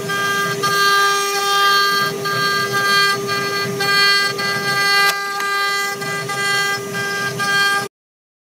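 CNC router spindle running with a steady high whine as a tapered engraving bit carves a relief into the board, the cutting noise swelling and easing every second or so as the bit moves back and forth. The sound cuts off abruptly near the end.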